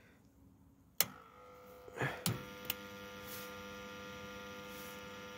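BlueWeld Imperial 220 Start battery charger-starter being switched on: a sharp switch click about a second in and a couple more clicks near two seconds, then its transformer hums steadily.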